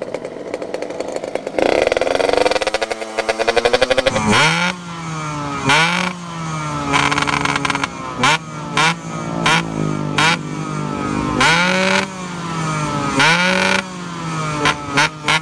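Yamaha RX-King two-stroke single-cylinder engine revved through an aftermarket 'setengah dewa' expansion-chamber exhaust for a sound check. It holds a steady pitch briefly, then is blipped repeatedly, rising and falling every second or two, with sharp crackles between the revs.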